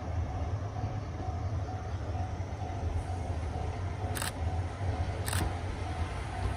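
Two sharp camera shutter clicks about a second apart, a little past the middle, over a steady low rumble.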